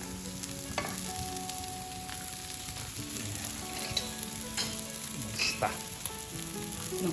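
Arborio rice frying in a pan with sautéed onion and leek, sizzling steadily while being stirred with a spoon, with a few short scrapes of the spoon against the pan.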